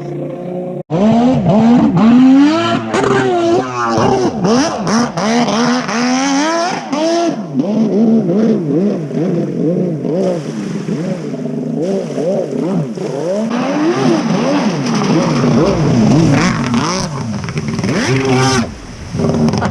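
Kawasaki 650SX stand-up jet ski with a swapped-in 1100cc two-stroke three-cylinder engine, running hard on a lap: the engine's pitch rises and falls again and again as the throttle is worked through the turns.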